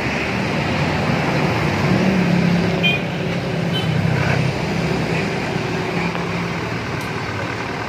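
Old Mitsubishi 'umplung' truck's engine revved through its exhaust: the pitch climbs about two seconds in, holds, then drops back toward idle near the end.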